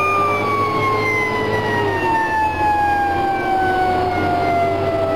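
Fire engine's siren heard from inside the cab, its pitch falling in one long slow glide as it winds down, over the truck's engine running.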